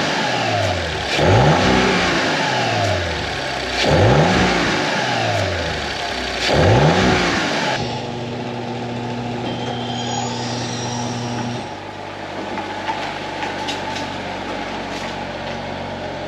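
Audi RS5's twin-turbo V6, on its stock intake, revved three times from idle, each rev rising and falling in pitch, with little turbo noise. From about eight seconds in it runs at a steady idle.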